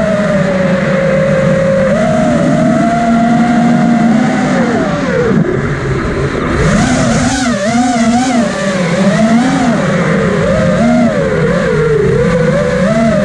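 Whine of a small FPV drone's electric motors and propellers, heard from its onboard camera over a rush of wind. The pitch holds fairly steady at first, dips about five seconds in, then wavers rapidly up and down as the throttle is worked.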